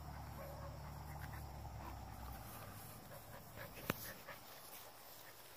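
Goldendoodle puppies panting faintly, with one sharp click about four seconds in.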